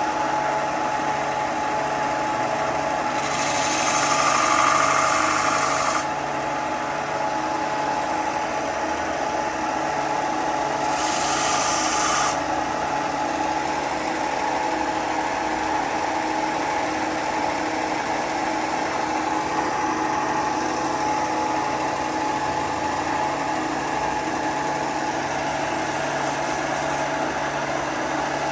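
Woodworking power tool running steadily, with two louder, hissier stretches: one about three seconds in lasting about three seconds, and a shorter one about eleven seconds in.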